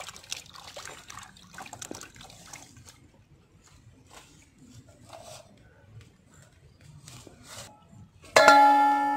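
Hands sloshing and rubbing red onions in water in a clay pot, with small irregular splashes and drips. About 8 seconds in, background music comes in suddenly, loud and sustained, and is the loudest sound.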